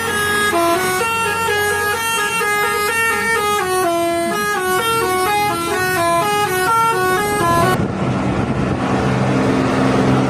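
Bus telolet horn playing a quick melody of short stepped notes, shifting up and down in pitch. About eight seconds in it gives way abruptly to a noisy wash with a low steady engine drone, and the horn tune starts again faintly near the end.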